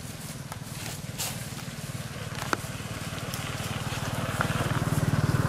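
A vehicle engine running with a steady low, fast pulse, growing louder over the last second or so. A few sharp ticks sound over it, the clearest about halfway through.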